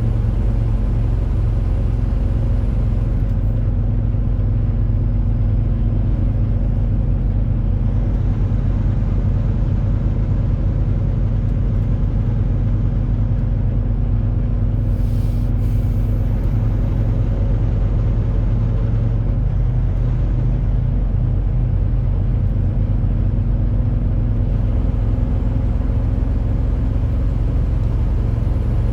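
Truck's diesel engine running with a steady low drone. A short hiss comes about fifteen seconds in.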